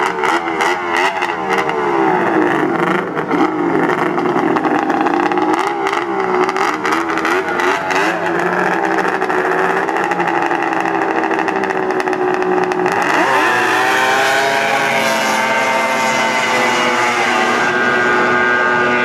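Several motorcycle engines idling and revving together, their pitch rising and falling, with rapid sharp pops through the first half. About thirteen seconds in, one engine revs up and holds at a higher steady pitch.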